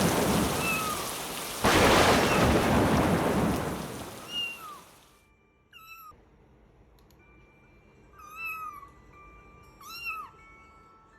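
Heavy rain with a thunderclap about two seconds in, the downpour fading away about halfway through. A kitten mews through it, about six short high mews, one every second or two.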